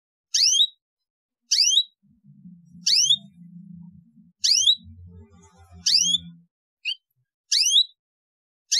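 Canary giving a short rising chirp over and over, about seven in all, at an even pace of roughly one every second and a half. A faint low rumble sits under the middle few chirps.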